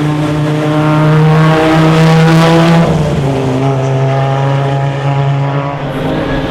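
Racing car's engine running at high revs, loudest about two to three seconds in, then its note dropping to a lower pitch and holding.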